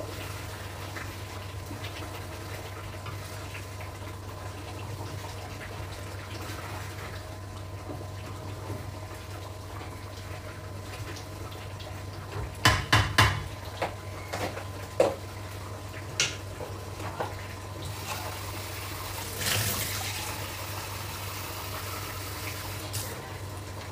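Kitchen cooking sounds over a steady low hum: a cluster of sharp clatters of utensils against the pan and dishes about halfway through, a few single knocks after, and a short splash of running water a little before the end.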